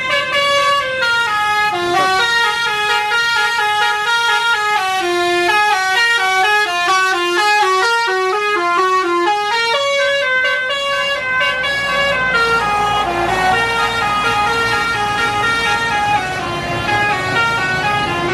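Bus telolet horn, a Basuri multi-trumpet air horn, playing a fast melody of stepped notes that jump up and down a few times a second. About halfway through, a low rumble joins underneath.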